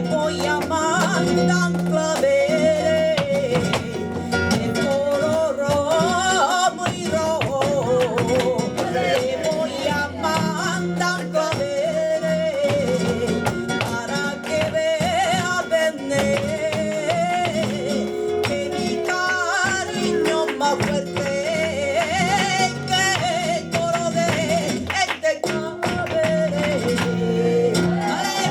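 Flamenco fandango played live: a woman's voice sings long, ornamented, wavering lines over strummed and plucked flamenco guitar, with sharp percussive clicks running through.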